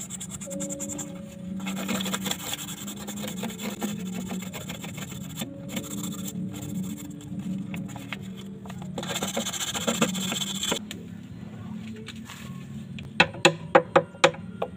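A small file rubbed rapidly back and forth over the tip of a thin steel wire, sharpening the point of a homemade eel hook, in two long spells. Near the end come about six sharp, ringing taps in quick succession.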